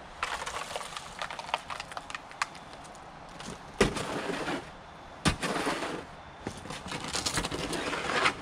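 A steel shovel scraping and working through wet concrete mix in a plastic mixing tub, in several strokes. Two sharp knocks come about four and five seconds in.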